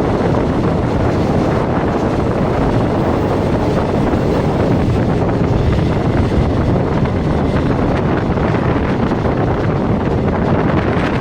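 Steady running noise of a moving passenger train, with heavy wind buffeting the microphone.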